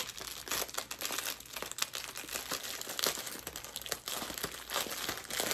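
Clear plastic bag crinkling and crackling in irregular bursts as hands grip it, open it and work at the small plastic drill packets inside.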